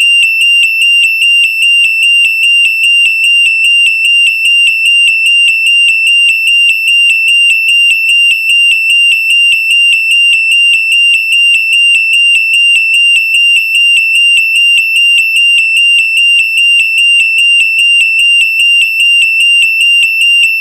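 Burglar alarm sounding: a loud, high-pitched electronic tone, steady in pitch and pulsing about twice a second without a break.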